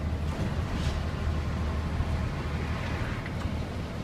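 A bus running along a road, heard from inside the cabin: a steady low engine drone with road noise over it.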